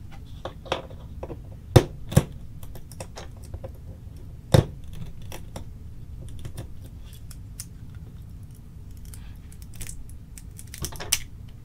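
PLA plastic support material snapping and cracking as it is broken out of a 3D-printed lure shell with needle-nose pliers: a string of small clicks with three loud sharp snaps, at about two seconds and again around four and a half seconds in, and a cluster of clicks near the end.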